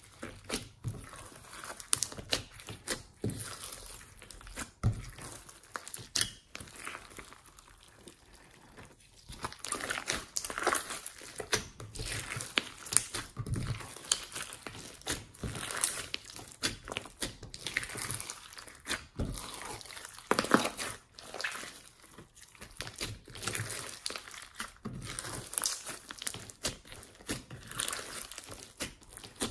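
Hands squeezing, kneading and stretching glossy slime full of foam beads: a continuous run of irregular crackles and pops.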